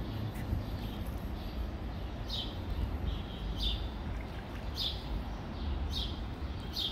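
A songbird giving a short, downward-sweeping chirp over and over, about once a second from about two seconds in, over a steady low rumble.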